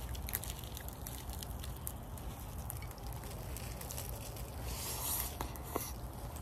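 Eating sounds: scattered soft clicks of utensils and squishy chewing over a steady low hum, with a short rustle about five seconds in.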